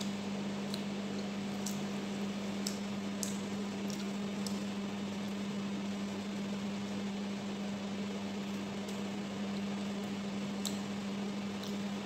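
Steady low electrical hum from a running kitchen appliance, with a few faint clicks and mouth sounds of someone eating rice by hand.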